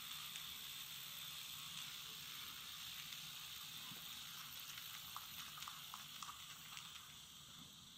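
Freshly cleaned Abu 6500 baitcasting reel's spool spinning freely with its magnetic brakes wound off, a soft steady whir that slowly fades as it runs down. The smooth running shows the cleaned reel spinning freely, "purring like a pussycat". A few faint ticks come about five to six seconds in.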